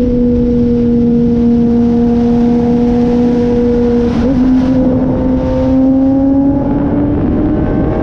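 Kawasaki ZX-10R inline-four engine running at highway cruise under wind noise. Its pitch sags slightly, gives a brief wobble about halfway through, then climbs slowly as the bike gathers speed.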